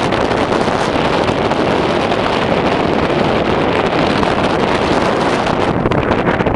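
Wind blowing over the microphone: a loud, steady rush of noise with no bird calls standing out.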